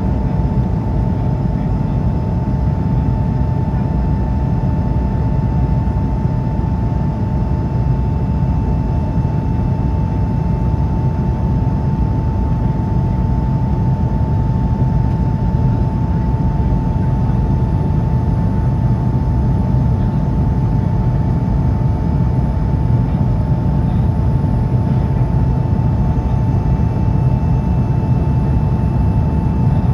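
Steady cabin noise of an Airbus A220-300 in the climb: a low rush of engine and airflow noise from its Pratt & Whitney PW1500G geared turbofans, with a constant whine over it.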